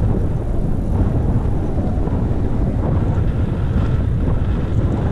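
Wind buffeting the microphone of a camera on a moving bicycle: a loud, steady low rumble.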